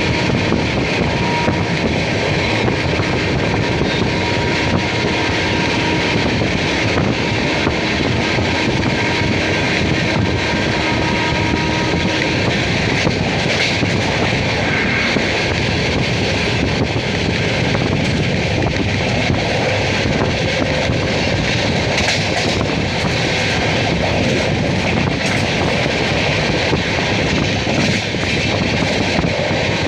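Passenger train running, heard from its open doorway: a steady rumble of wheels on the rails mixed with wind buffeting the microphone, with a few sharper clacks about two-thirds of the way in.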